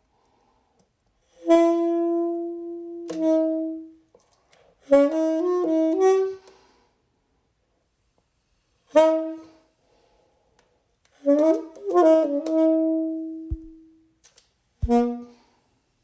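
Solo saxophone playing a slow melody in separate phrases of long held notes, with silent pauses between phrases.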